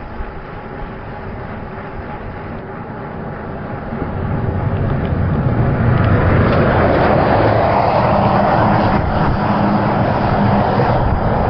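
Wind and road noise on a highway during a bicycle ride. It grows much louder between about four and six seconds in and stays loud.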